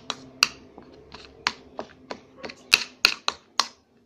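Homemade slime of glue and soap being stirred in a container: irregular sharp clicks and taps, about two to three a second, over a faint steady hum that stops near the end.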